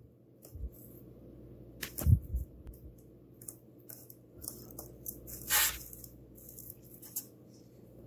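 Scissors snipping the nylon rip cord of an Ethernet cable, with small clicks from the cable being handled. There is a low knock about two seconds in, and a brief, louder rasping snip about five and a half seconds in.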